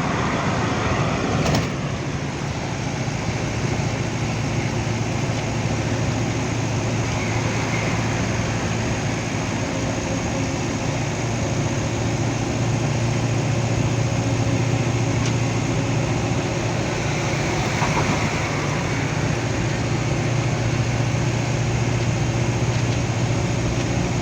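Small loaded truck driving at a steady speed: a continuous engine drone with road noise, and one short click about a second and a half in.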